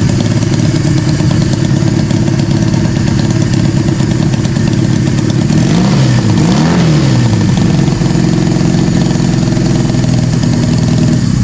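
1965 Honda CB160's air-cooled parallel-twin engine running at idle, with two quick throttle blips about six seconds in where the revs rise and fall before settling back to a steady idle.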